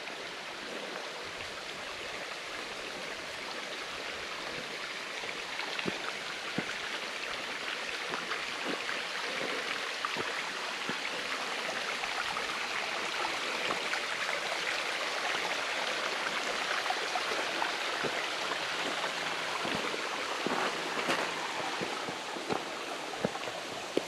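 Creek water running over rocks in a steady, even rush that grows slightly louder over the first several seconds, with a few faint knocks.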